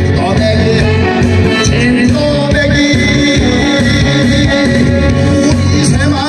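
Korean trot song performed live: a male singer singing into a handheld microphone over a loud backing track with a steady beat.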